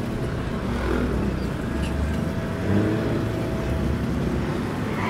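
Street traffic passing close by: motor scooters and a car driving past, engines running, with a brief swell in loudness a little under three seconds in.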